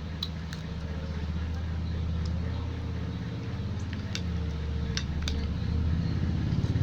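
Low, steady hum of an engine in the background, growing louder near the end, with a few scattered sharp clicks.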